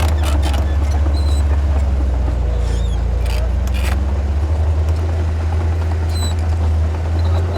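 Diesel engine of heavy earthmoving equipment running steadily with a deep, loud drone, with scattered metallic clanks and rattles over it.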